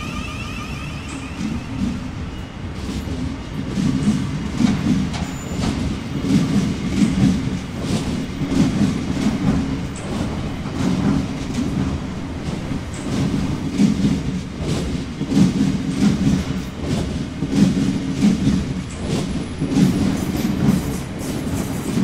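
Southeastern Class 707 electric multiple unit pulling away along the platform and gathering speed. A rumble grows louder over the first few seconds, with repeated clatter of the wheels over the rail joints.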